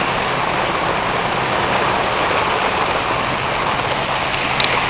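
Steady rush of floodwater churned up as a car drives through a flooded street, with a low engine hum underneath.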